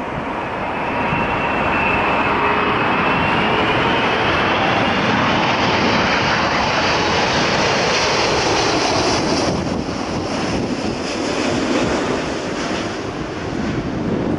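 Emirates Airbus A380, four-engined, on short final with gear down, flying low past: a loud rushing jet-engine noise with thin whining tones that drift in pitch as it goes by. It builds over the first couple of seconds, holds, then eases off a little in the second half as the jet moves away toward the runway.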